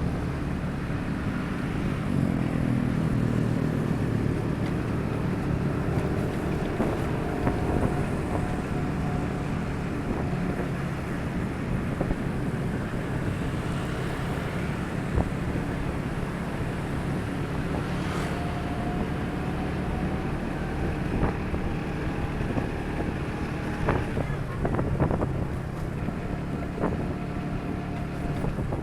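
Motorcycle engine running under way on a road, picking up speed about two seconds in, with wind buffeting the microphone.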